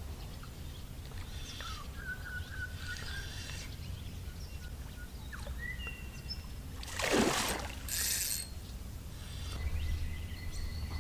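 Creek-bank outdoor ambience: a steady low rumble with scattered short whistled bird calls. There are two brief rushing noises about seven and eight seconds in.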